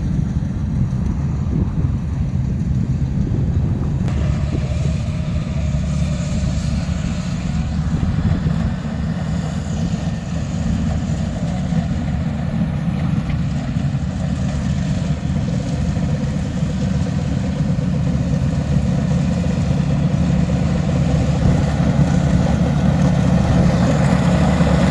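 Heavy farm machine engine running steadily and evenly under load, getting a little louder toward the end.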